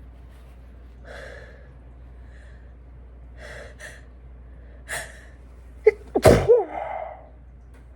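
A woman sneezing. A few breathy, gasping intakes build up over several seconds, then a sharp sneeze comes about six seconds in, with a short voiced tail.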